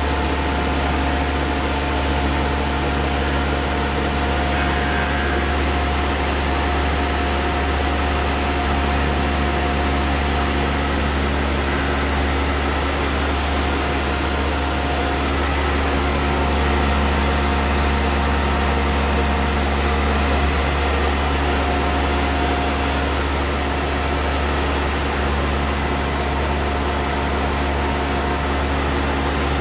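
Tormach CNC mill running steadily, its spindle turning a coated ball end mill that takes a light finishing cut along the edge of an aluminium part, giving a steady hum and whine. Under it is an even hiss from the spray nozzles aimed at the cutter.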